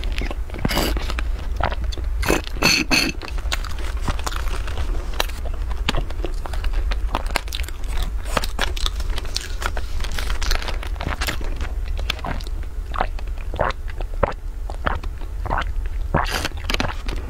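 Close-miked sipping through plastic straws stuck into a shrink-wrapped pack of small drink bottles, with irregular clicks and crinkles from the plastic wrap, over a steady low hum.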